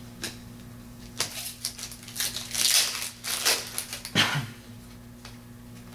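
Foil wrapper of a Topps Chrome card pack crinkling as it is torn open and the cards are handled, in short crackly bursts, with a brief louder knock about four seconds in.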